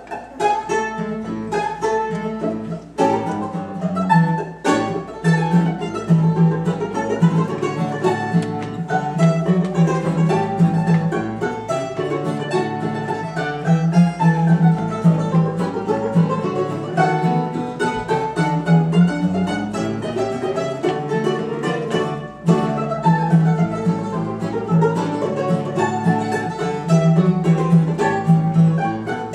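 Ragtime string trio playing a rag: mandolin-banjo carrying the melody, a second mandolin, and acoustic guitar keeping a steady bass-and-chord rhythm.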